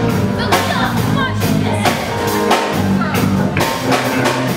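Live band playing a song: a woman sings lead into a microphone over electric bass, keyboard and drums.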